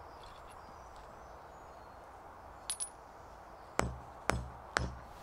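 Hand-hammer blows on a heavy iron sledgehammer head, driving out the stub of its broken wooden handle. Two light metallic clinks come about two and a half seconds in, then four sharp blows about half a second apart near the end.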